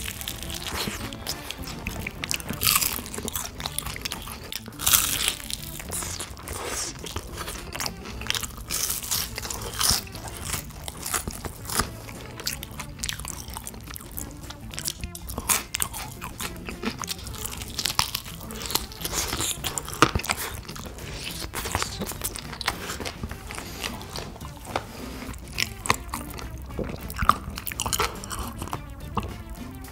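Close-up crunching bites and chewing of crispy honey-glazed fried chicken, with many sharp crunches at irregular intervals.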